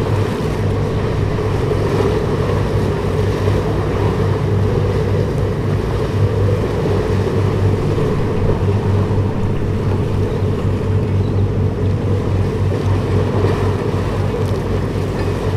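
Steady low drone of the passing Harmony of the Seas, its diesel engines and funnels humming, over a wash of wind and water noise.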